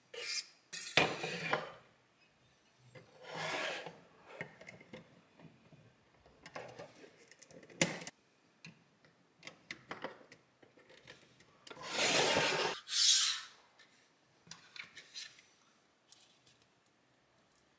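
Plastic LEGO parts being handled and fitted together: irregular bursts of rubbing and scraping, the loudest a pair of longer scrapes near the end, with scattered sharp clicks as pieces press into place.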